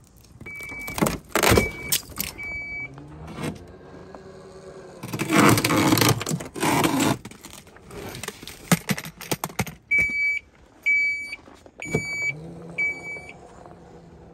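Minivan power liftgate working: high warning beeps, three early and four near the end, each time followed by the whir of the liftgate motor. A loud crackling clatter comes about five to seven seconds in.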